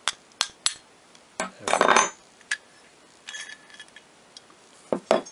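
Small metal hardware being handled: steel nuts and washers clinking and knocking against a threaded brass lamp nipple and the mirror pedestal. Several sharp clicks, a short scrape about two seconds in, and a brief metallic ring a little later.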